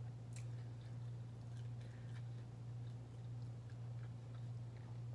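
A person chewing a bite of pizza with the mouth closed, with soft scattered clicks, over a steady low hum.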